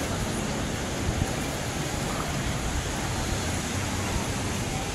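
Ocean surf washing onto a beach: a steady, even rush of noise with no distinct breaks.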